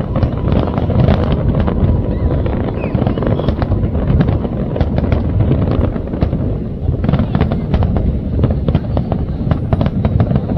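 Fireworks display: a steady low rumble of bursts with rapid, dense crackling bangs that never stop, thickest in the second half.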